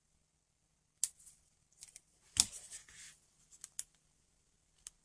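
Handling of a plastic astronaut star projector toy: a few sharp plastic clicks, with a short rustle about two and a half seconds in, as its cable is plugged into the back and the toy is handled.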